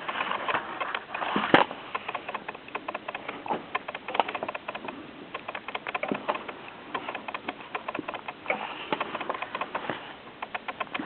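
Paper pages of a soft-cover book being turned and handled: irregular rustles and light clicks, with one sharper click about a second and a half in.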